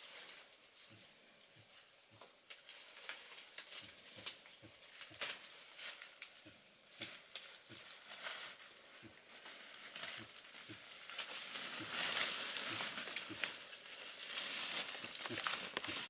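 Dry leaf litter and brush rustling and crackling, with many scattered small snaps and taps as someone moves and works in the undergrowth; the rustling grows thicker and louder in the last few seconds.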